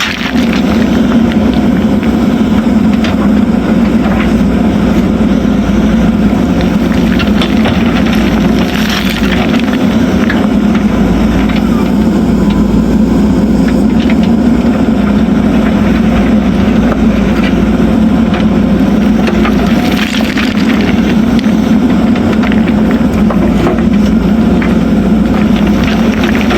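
JCB backhoe loader's diesel engine running steadily while working, with a few faint clicks and knocks over it.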